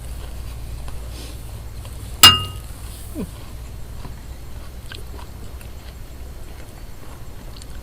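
Close-up eating sounds: quiet chewing with small mouth clicks, and one sharp clink with a brief ring about two seconds in, like a spoon knocking against the noodle bowl.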